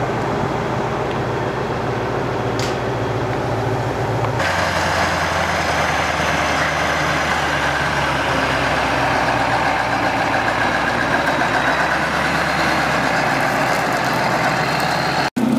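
Diesel engine of a Kirovets K-700-series articulated tractor running steadily as it pulls a disc harrow through the soil. The sound changes abruptly about four seconds in and drops out for an instant just before the end.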